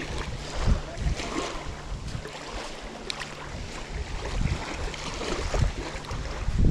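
Wind rumbling on the microphone in irregular gusts, with footsteps on wet sand and small waves lapping at the shoreline.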